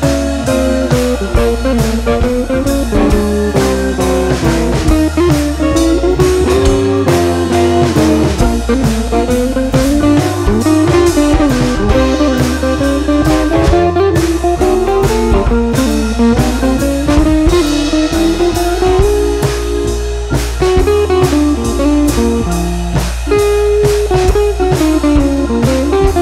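Background blues music: a guitar plays a melody with bending, sliding notes over a steady drum kit beat.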